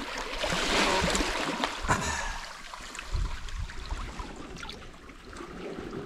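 Shallow sea water lapping and trickling among stones at the water's edge, louder for the first couple of seconds, with a few small knocks.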